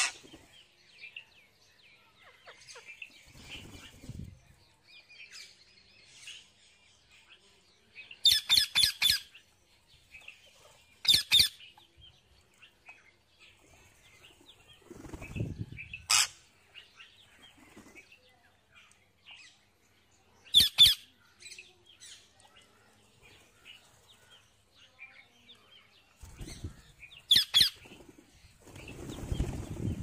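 Rose-ringed parakeets giving short, shrill screeching calls: a quick run of several about eight seconds in, then single calls every few seconds. Wings flap a few times as birds come and go, with faint chirping in between.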